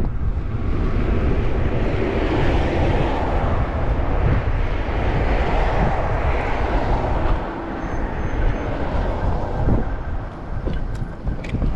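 Wind buffeting the microphone while riding, with road traffic going by; the traffic rush eases off after about seven seconds.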